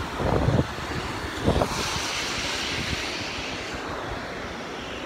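Steady rush of river water pouring over the dam and through the fish ladder, with wind thumping the microphone twice in the first second and a half.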